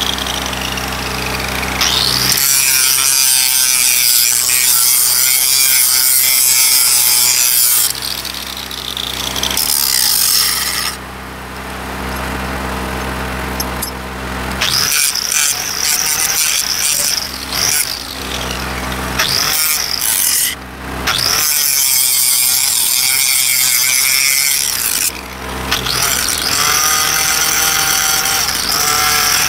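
Angle grinder grinding the steel rail of a railroad switch point in several bursts of a few seconds each, with short pauses between them. A steady low hum runs underneath.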